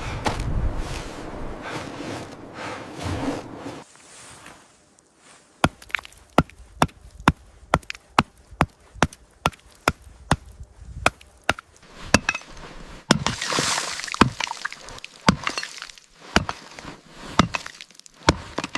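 Repeated chopping blows into thick ice, about two to three sharp strikes a second. They begin a few seconds in after a stretch of steady noise, grow less regular in the second half, and stop near the end.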